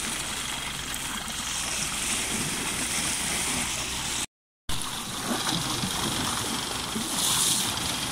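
Bow wave rushing and splashing along the hull of a sailing yacht under way: a steady hiss of water that cuts out for a moment about four seconds in.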